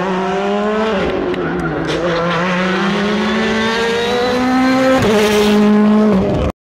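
Hyundai i20 WRC rally car's turbocharged four-cylinder engine at full race pace through a tarmac bend: the revs drop about a second in, then climb steadily, with a gear change near the end, where it is loudest as the car passes close.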